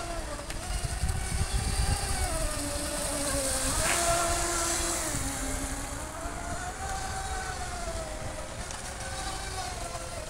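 A radio-controlled speedboat's motor whines across the water, its pitch rising and falling as it speeds up and eases off, over a low rumble.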